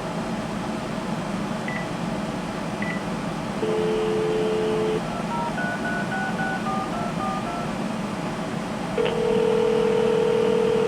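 Cordless phone handset placing a call: two short key beeps, a dial tone for about a second, then a quick run of touch-tone digits being dialed. About nine seconds in there is a click and a steady ringback tone as the number rings.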